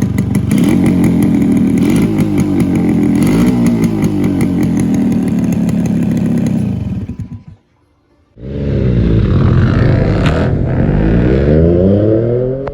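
Yamaha RX 125's two-stroke single-cylinder engine running with a couple of brief blips. It dies away to near silence about seven seconds in, then comes back suddenly and climbs steadily in pitch as it is revved or pulls away.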